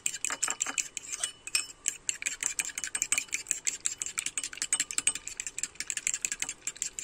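Metal fork whisking a raw egg in a ceramic bowl, rapid clicking as the tines strike the bowl several times a second, stopping near the end.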